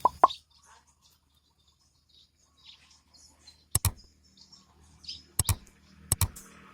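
Birds chirping in short scattered calls, with a few sharp clicks about four, five and a half and six seconds in.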